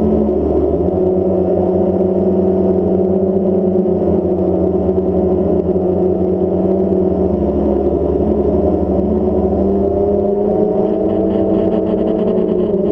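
Ambient background music: sustained synthesizer chords over a low bass drone, the bass note changing about ten seconds in.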